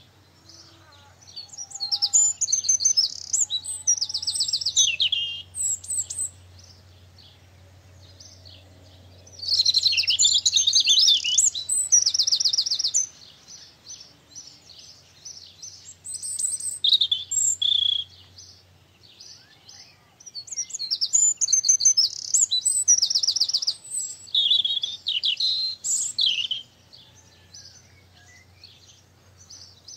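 A songbird singing loud, high phrases of rapid trills and warbles, four phrases of a few seconds each separated by short pauses.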